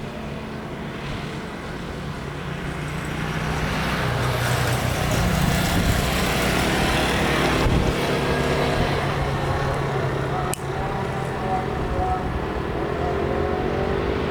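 Steady engine and traffic-like noise that swells about four seconds in, with a brief drop near ten seconds.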